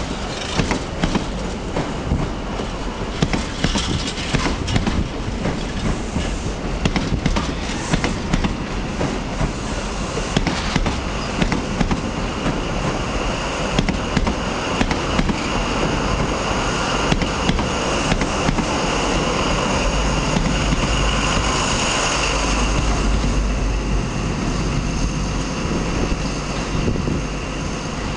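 High Speed Train running past at speed: Mark 3 coach wheels rumbling and clicking irregularly over the rail joints. From about sixteen seconds in it swells, with a deep throb and a steady high whine as a VP185-engined Class 43 power car comes by, then eases off.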